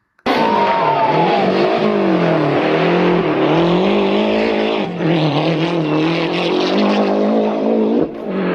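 Rally car engine at full effort, its note rising and falling again and again as the driver goes through the gears and lifts off, over loud road and tyre noise. It cuts in suddenly at the start and drops away just before the end.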